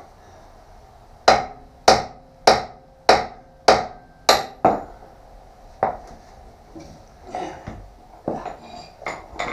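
A hammer striking steel: seven sharp, ringing blows about every half second, a single one a second later, then a few lighter knocks, knocking a steel part back into position.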